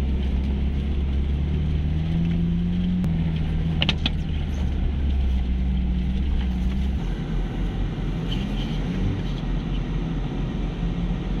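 Off-road 4x4 engine running steadily at low speed, heard from inside the vehicle, with a couple of short knocks about four seconds in. The steady engine hum ends about seven seconds in, giving way to rougher vehicle noise.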